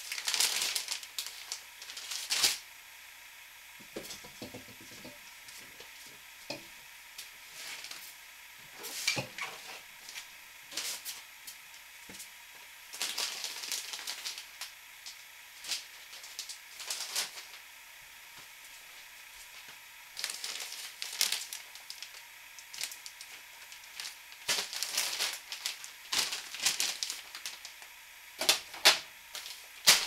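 Kraft-paper-faced fiberglass insulation batts rustling and crinkling in repeated short bursts as they are pulled from between wall studs and wrapped around a mini fridge.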